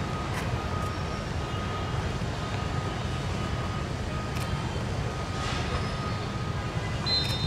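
Steady low outdoor rumble, with a couple of faint thumps as footballs are shot at and saved by diving goalkeepers.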